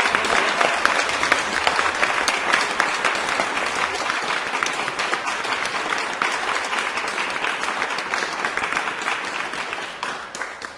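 Crowd applauding, many hands clapping together steadily, fading out near the end.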